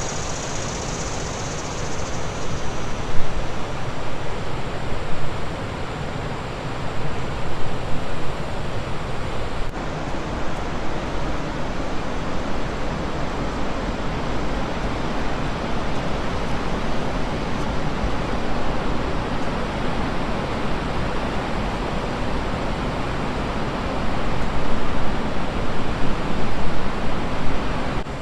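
Rushing water of large river falls and rapids: a steady, dense noise that swells a little about three seconds in and again near the end.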